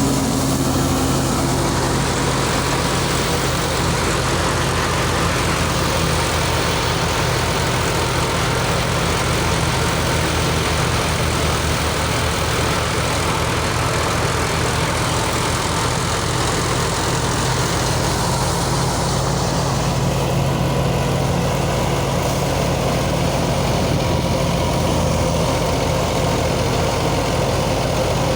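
Engine-driven wheat threshing machinery running steadily at constant speed, with a low, even pulsing hum.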